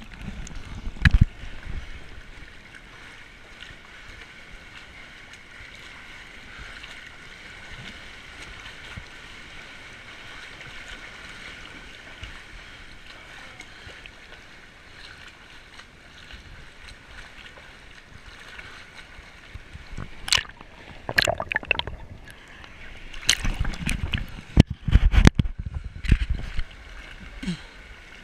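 Sea water sloshing and splashing around a swimmer's camera at the water's surface: a steady muffled hiss, then a run of loud splashes from about 20 seconds in.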